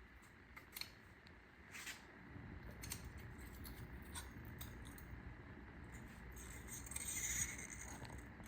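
Scattered light metallic clicks and taps of hand tools and small metal parts being handled, with a low rumble coming in about two seconds in and a brief louder clink-and-rattle near the end.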